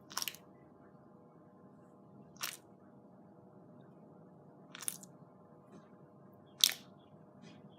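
Slime poked slowly with a finger, four times about two seconds apart, each poke giving a short crackling pop; the last is the loudest.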